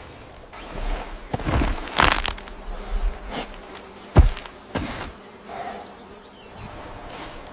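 A buzzing like insects, with a string of sharp knocks and cracks, the loudest about four seconds in.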